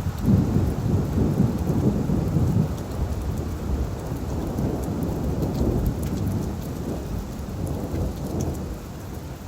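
Steady rain falling on leaves, with scattered drop ticks, over a low rolling rumble that is loudest in the first three seconds and then eases off.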